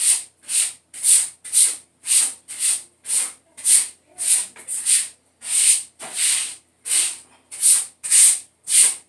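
A floor mop scrubbed back and forth on a bathroom tile floor, a steady rhythm of rubbing strokes about two a second.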